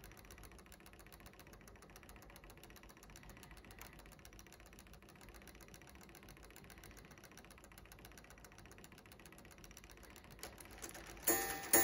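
LEGO Technic clock mechanism running fast with its pendulum removed: a faint, rapid, even ticking from the escapement and gear train. Near the end the second locking lever releases the striking train and the hammer strikes once, loud and with a ringing tail.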